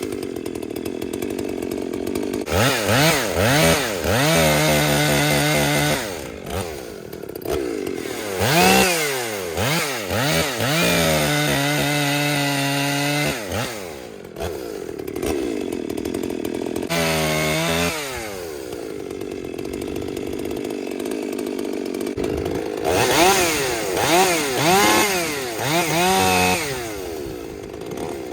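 Husqvarna 257 two-stroke chainsaw cutting firewood: it settles back to idle between several bursts of throttle, and during each burst the engine note rises and sags as the chain works in the wood.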